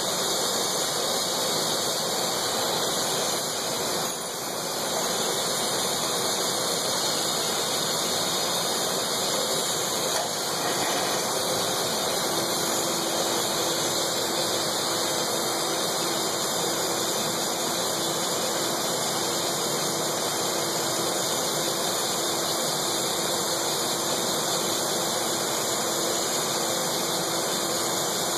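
Steady hiss of a glassblower's hand torch flame playing on a glass tube. About twelve seconds in, a faint steady hum from the running glass lathe joins it.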